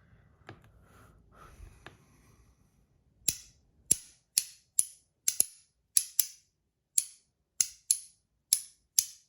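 ACEDC Zirconium Mini Milk Cap, a magnetic haptic fidget coin, snapped repeatedly in its loud mode: after a few seconds of faint handling, about a dozen sharp, crisp clicks come at roughly two a second, some in quick pairs.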